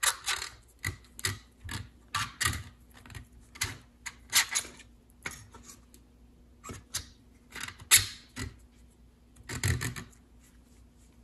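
Piston with its rings being pushed and twisted by hand into a tapered ring-compressor sleeve: irregular metal clicks and scrapes, with a short lull about halfway through.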